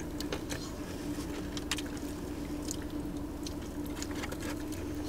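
Close-miked chewing and wet mouth sounds of people eating breaded chicken tenders, many small scattered clicks, over a steady low hum.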